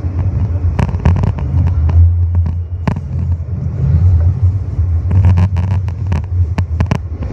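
R160A subway train running on elevated track, heard from inside the car: a steady low rumble and hum, broken by many sharp, irregular clacks of the wheels over rail joints and switches, bunched most thickly near the end.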